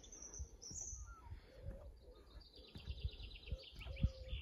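Garden birds singing faintly: scattered high chirps, then a trill of quickly repeated notes about halfway through. Soft low thumps sound beneath them now and then.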